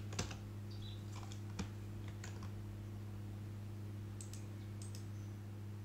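Scattered computer keyboard and mouse clicks, about half a dozen sharp taps, over a steady low electrical hum.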